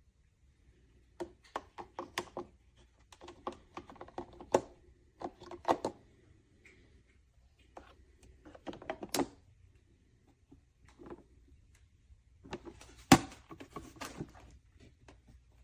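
Plastic clicks, taps and knocks from handling a Hamilton Beach drip coffee maker and its carafe, in irregular clusters, with one sharp knock about 13 seconds in.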